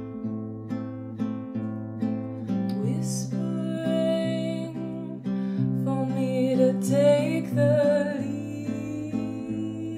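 Fingerpicked classical guitar playing a steady, even pattern of notes. From a few seconds in until near the end, a held, wavering wordless vocal line sings over it.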